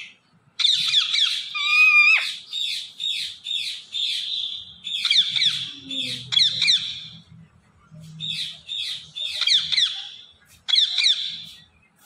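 Indian ringneck parakeet calling in rapid runs of short, high, downward-sweeping chirps, with short pauses about seven and ten seconds in.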